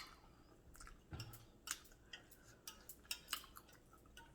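Faint eating sounds: scattered soft clicks and mouth smacks of chewing, with one dull low knock about a second in.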